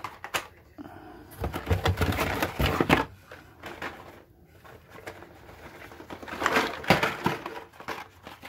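Blister-carded Hot Wheels cars being pulled from a cardboard case, plastic packs clacking and cards rustling against each other and the box in two bursts, one from about a second and a half in and another near the end.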